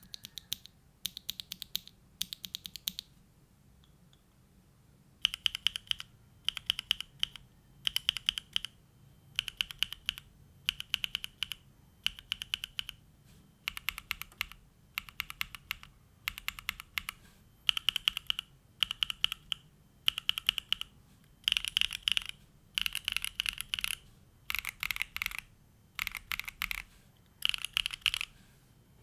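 Neo65 mechanical keyboard with a carbon fibre plate, hand-lubed WS Onion switches and JTK and GMK keycaps being typed on in rapid bursts of keystrokes about a second long, with short pauses between. There is a longer pause a few seconds in.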